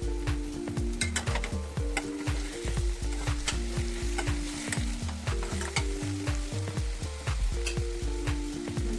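Food sizzling as it fries in a pan and is stirred, with scrapes and clicks of the utensil against the pan. Background music with a steady bass beat plays over it.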